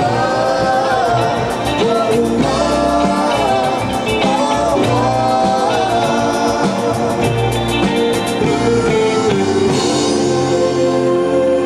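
A woman singing lead into a microphone with a live band behind her: electric guitar, drums and keyboards.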